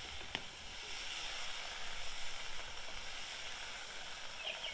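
Diced potatoes frying in butter in a large cast iron skillet over a campfire: a steady sizzle, with one sharp click about a third of a second in.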